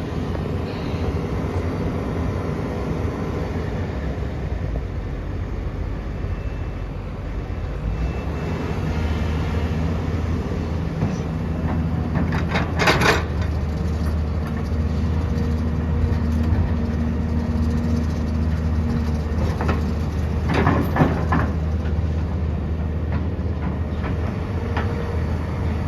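Diesel engine of a JCB 3DX backhoe loader running under load. Its note steps up about a third of the way in and holds steady there. Sharp knocks come about halfway through and twice more close together later on.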